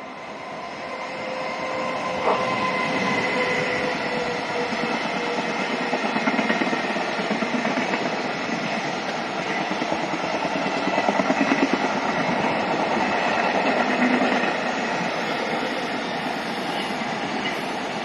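Freight train rolling past, its wheels clacking over rail joints. The sound swells over the first couple of seconds and then holds steady.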